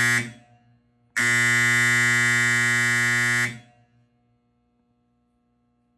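Fire alarm horn sounding a loud, harsh buzzing tone. It cuts off just after the start, sounds again about a second in for roughly two and a half seconds, and a brief echo trails each cutoff.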